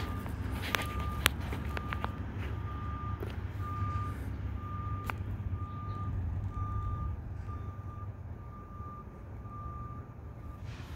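Garbage truck's backup alarm beeping at a steady pitch, about three beeps every two seconds, over the low rumble of the truck's engine; the beeping stops near the end. A sharp click sounds about a second in.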